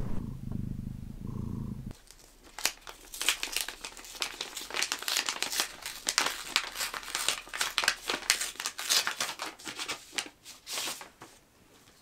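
A cat's low purr for about the first two seconds, then a paper envelope being torn open, its paper crinkling and rustling in quick irregular crackles that die away near the end.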